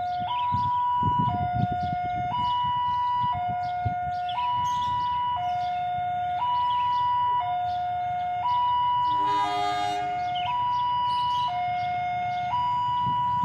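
Railway level-crossing warning alarm sounding its two-tone signal, a higher and a lower tone alternating about once a second as a train approaches. About nine seconds in, a short horn blast from the approaching diesel locomotive, with a low rumble underneath.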